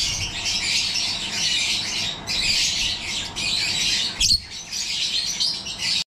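Masked lovebirds chattering: dense, high-pitched twittering and squawks that carry on throughout. A short, sharp thump comes a little after four seconds in.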